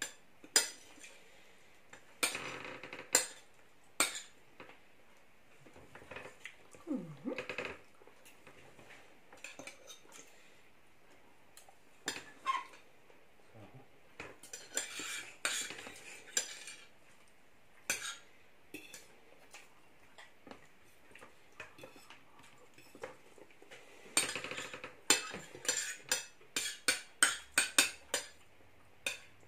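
Metal knives and forks clinking and scraping against ceramic dinner plates as food is cut and eaten. The sharp clicks come irregularly, with a busier run of them near the end.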